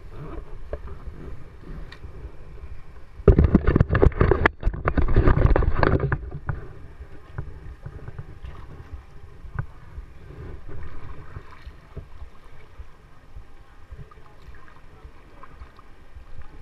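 Kayak paddle strokes in river water: splashing and dripping, with knocks of the paddle close to the bow, loudest for about three seconds from a few seconds in, then lighter splashes and drips.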